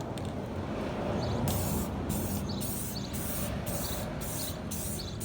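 Aerosol can of clear coat spraying onto a sanded headlight lens: a continuous hiss whose high part cuts in and out about twice a second from about a second and a half in.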